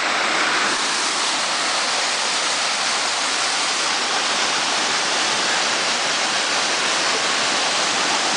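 Waterfall splashing into a pool: a steady, loud rush of falling water.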